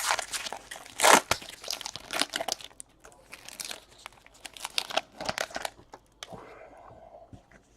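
Plastic wrapping on a Panini Origins football card box being torn open and crinkled: a run of irregular crackles, busiest at first, then softer rustling near the end.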